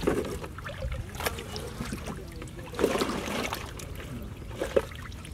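Water sloshing and splashing in the bottom of a wooden canoe as hands work among a catch of small fish, with a few sharp knocks. The loudest splash comes about three seconds in.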